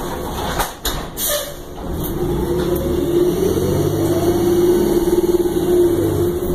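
2009 Orion VII transit bus pulling away, heard from inside the cabin: a few sharp clicks about a second in, then the engine and drivetrain build up with a steady whine as the bus accelerates, easing off near the end.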